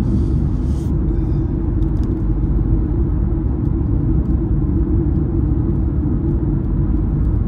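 Steady low rumble of a car driving at highway speed, heard from inside the cabin: engine and tyre-on-road noise.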